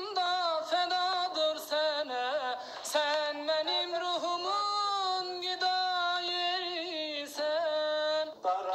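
A single voice sings unaccompanied in a high register, holding long notes that bend and waver in pitch. It breaks off shortly before the end.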